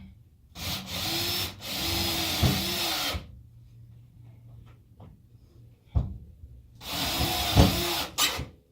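Power drill driving self-drilling Teks screws into the bus's subfloor, in two runs: a longer one of about two and a half seconds, then a shorter one of about a second and a half. A single knock falls between the two runs.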